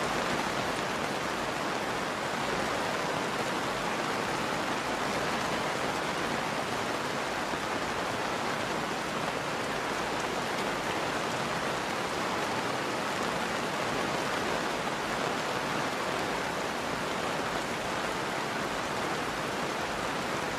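Steady rain falling, an even hiss with no single drops or changes standing out.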